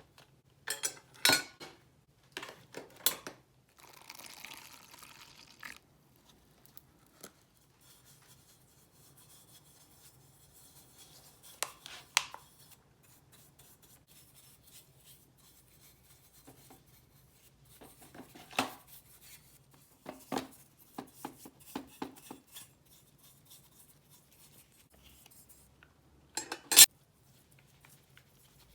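Scattered clicks, taps and clinks of small hard parts of a model car being handled and set down on a worktable, with a short scraping rustle about four seconds in and a sharp click near the end.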